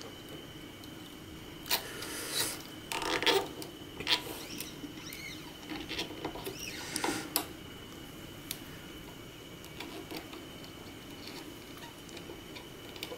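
A new nylon string is being threaded and hooked around the tuning roller at a classical guitar's slotted headstock. It gives irregular small scrapes, rubs and clicks from fingers and string on the wood and rollers, busiest in the first half, with a couple of short squeaky glides as the string slides.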